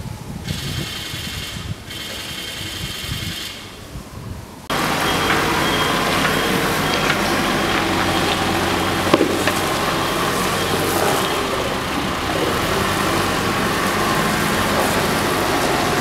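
Wind on the microphone for the first few seconds. After an abrupt cut about five seconds in comes a backhoe loader's diesel engine running steadily at a construction site, with a sharp clank near the middle.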